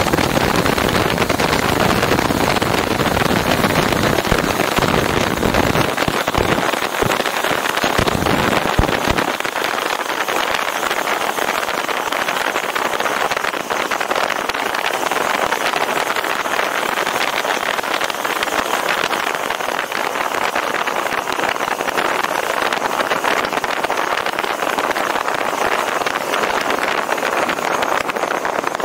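Steady rushing road and wind noise from a moving vehicle. Low buffeting rumbles fill roughly the first nine seconds, then give way to a smoother, even hiss.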